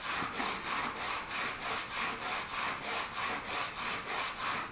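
ABS plastic sheet rubbed back and forth by hand on a sanding belt laid flat on a bench: a rhythmic scratchy rasp at about four strokes a second, roughing up the surface for solvent welding.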